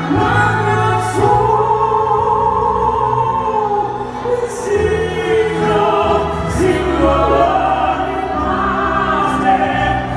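Orchestra accompanying singing voices in an operatic ballad style, the voices holding long notes over a steady low orchestral bed.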